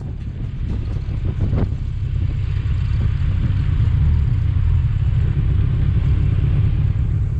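Motorcycle running at low speed on a dirt road, its engine and wind rumble on the microphone making a steady low rumble that fades in over the first second.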